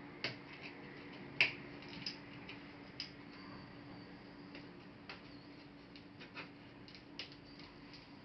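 Scattered light clicks and taps as small laptop parts and tools are handled, the sharpest about one and a half seconds in, over a faint steady hum.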